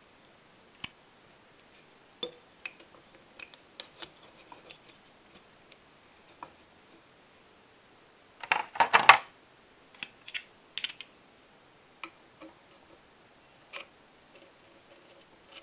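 Small plastic clicks and taps as a two-pin wire connector is pushed together, then, a little over halfway through, a loud crackle of a thin vacuum-formed plastic parts tray as a propeller is pulled out of it. Light clicks follow as the propeller is fitted onto the engine's shaft.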